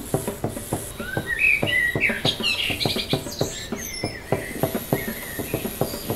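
Birds chirping, loudest in a burst of quick chirps in the first half, over a steady rhythmic knocking of about three knocks a second.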